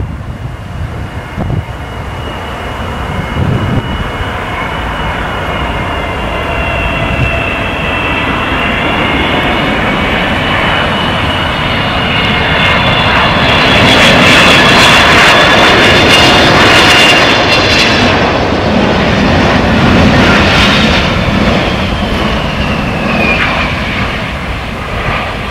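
Jet airliner passing close by, its engine whine and roar building to a peak about two-thirds of the way through, then the whine falling in pitch as it moves away.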